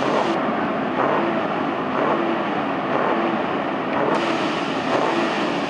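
Heavy truck diesel engines revved hard and repeatedly, blowing black smoke from their exhaust stacks; a loud, dense rumble that swells about once a second.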